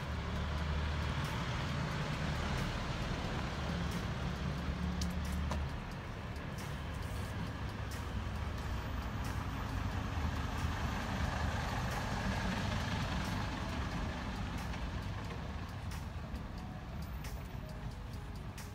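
Road traffic: a heavy vehicle's engine rumbling close by for about the first six seconds, then a steady wash of passing traffic.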